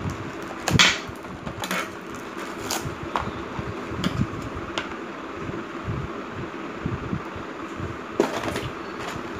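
A cardboard-and-plastic battery-charger pack being cut open with a knife and handled on a glass tabletop: scattered knocks, taps and rustles of packaging. The sharpest knock comes about a second in and another near the end.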